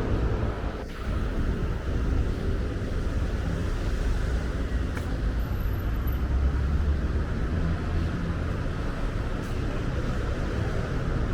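City street traffic: a steady low rumble of passing motor vehicles.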